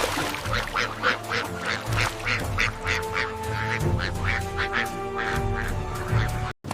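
Ducks quacking over and over, about three calls a second, over steady background music.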